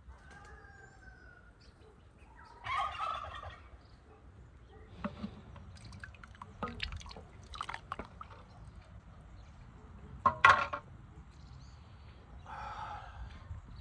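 A turkey gobbling twice, about three seconds in and again near the end, with clinks of a metal ladle against a large stock pot in between. The loudest sound is a sharp metallic clatter about ten seconds in.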